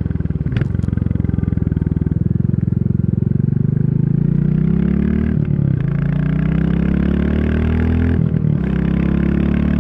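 Royal Enfield Classic 350's single-cylinder engine pulling hard under acceleration. Its note rises, drops briefly at an upshift about five and a half seconds in and again about eight seconds in, then climbs again each time.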